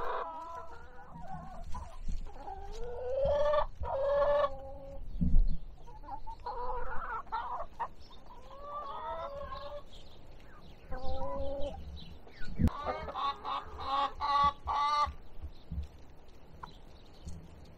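Hens clucking and calling in several bouts, with two dull knocks, the louder about five seconds in.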